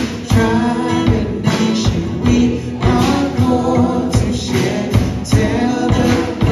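Live worship song: a man singing lead into a microphone over strummed acoustic guitars and drum and cymbal percussion keeping a steady beat.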